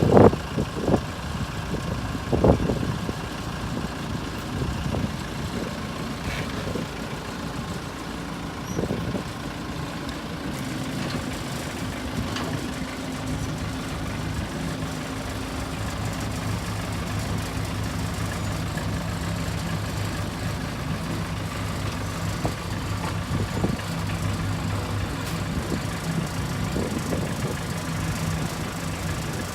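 Backhoe engine running steadily, with a few sharp knocks in the first seconds.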